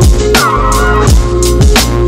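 Background music with a steady beat: deep kick drums that drop in pitch, about two a second, under held chords.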